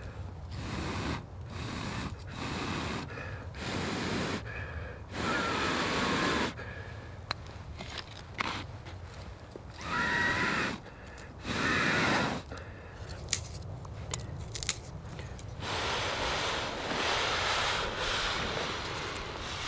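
A person blowing repeatedly on a small glowing ember cupped in the hands to coax it to life: a series of long puffs of breath, each a second or so, with short pauses, a couple of them with a faint whistle. A few small sharp clicks come in the middle.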